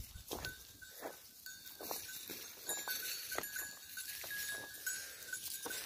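A livestock bell clinking irregularly as the flock of sheep moves, over short crunching footsteps on stony ground.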